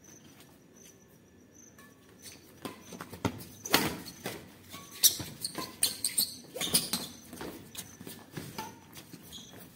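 Badminton rally: rackets striking the shuttlecock with sharp thwacks, mixed with shoes scuffing and slapping on a concrete court. It starts after about two quiet seconds and goes on as a quick run of hits and footfalls.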